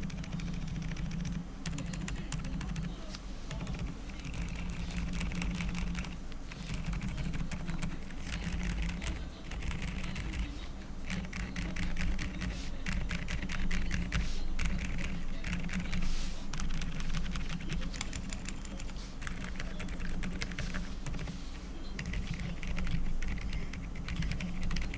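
Fast typing on a QK75 mechanical keyboard with lubed Outemu Peach low-noise linear switches, a polycarbonate plate and Cherry-profile PBT keycaps: runs of quick keystrokes broken by short pauses.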